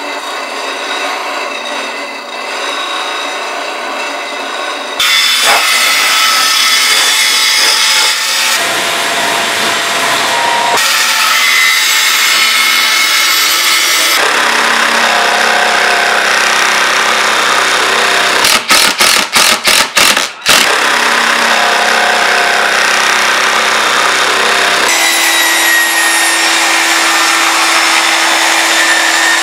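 Woodshop power tools in quick succession: a bench grinder sharpening a steel turning tool, a band saw cutting a hardwood board, and a table saw. Each machine sound changes abruptly to the next. About two-thirds of the way through comes a quick run of about eight sharp strikes.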